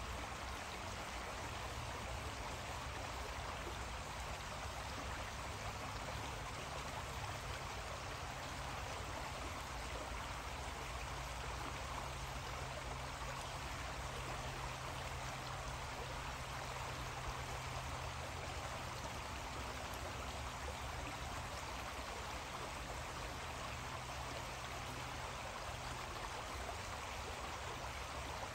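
Small creek flowing steadily, an even rushing babble of water, with a low steady hum underneath.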